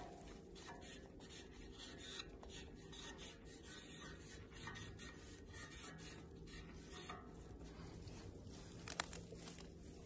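Faint rubbing of a paint marker's tip on a painted metal railing as letters are written, in many short strokes that thin out after about seven seconds. A single sharp click comes near the end.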